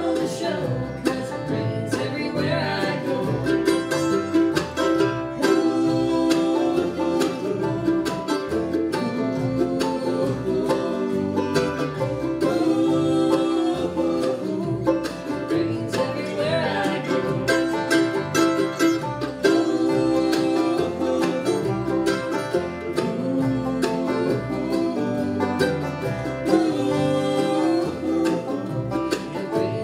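Live bluegrass band playing: five-string banjo, fiddle, mandolin, acoustic guitar and upright bass together.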